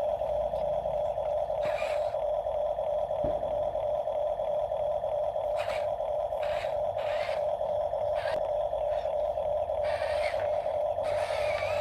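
Small electric motor of a remote-control toy construction vehicle whining steadily, with brief scraping and rattling noises now and then.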